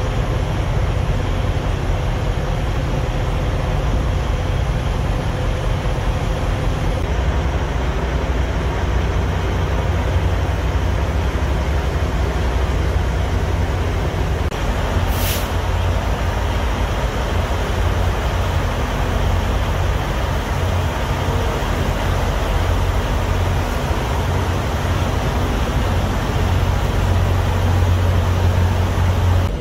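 Steady low rumble of idling diesel semi trucks, with a brief high hiss about fifteen seconds in.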